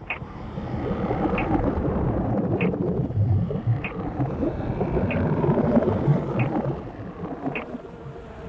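Sound-design soundscape: a dense, grainy low rumble that swells in, holds, then fades away. Over it a short, sharp high tick repeats evenly about every 1.2 seconds, like a slow clock.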